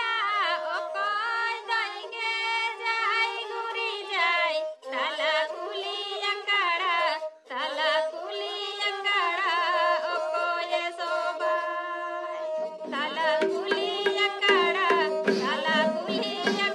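Santali lagre folk song sung by women's voices in a melodic line, with a short break partway through. About three-quarters of the way in, drums and a lower held tone join the singing.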